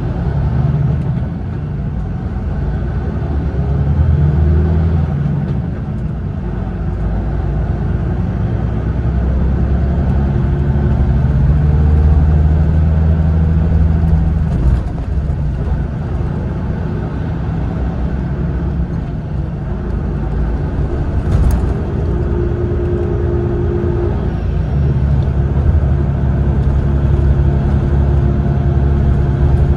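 Cabin sound of a Mitsubishi Fuso Aero Ace coach on the move: the diesel engine's drone and road rumble, with the engine pitch shifting as the bus speeds up and eases off. A brief click about two-thirds of the way through.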